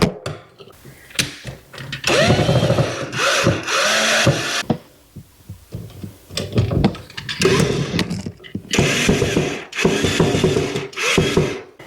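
Cordless power screwdriver or drill running in several short bursts of a couple of seconds each, its motor whirring up and down in pitch.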